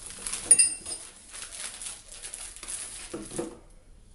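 Plastic wrapping and paper rustling as a product manual is taken out of its packet, with a sharp metallic clink about half a second in. The handling stops about three and a half seconds in.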